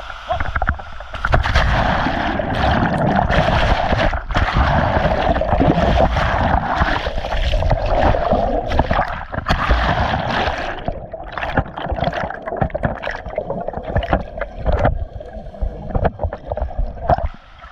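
Water splashing and gurgling close to the microphone in rapid, irregular bursts, over a steady rush of falling water from the waterfall.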